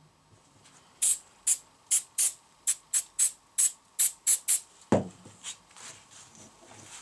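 Aerosol can giving about a dozen short, quick sprays in a rapid series onto a glued wooden block, then a thump about five seconds in.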